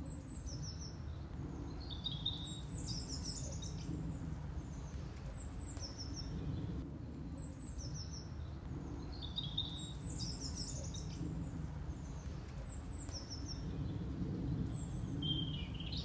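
A small songbird singing short, high, quickly falling phrases, repeated every two or three seconds, over a steady low rumble of open-field ambience.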